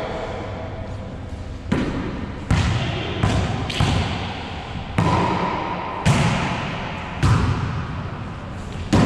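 Volleyball being hit by hands and rebounding off the hard walls and floor of an enclosed court in a wallyball rally: about eight sharp smacks, roughly one a second, each followed by a long echo.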